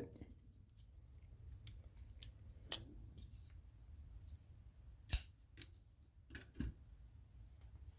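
Folding pocketknives being handled: two sharp metallic clicks about two and a half seconds apart, with a few fainter clicks and small handling sounds, as a folding blade is flicked open or snapped shut.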